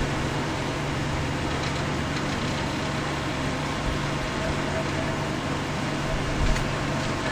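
Comfort Zone CZ121KM 12-inch table fan running steadily: an even low hum with a rush of air.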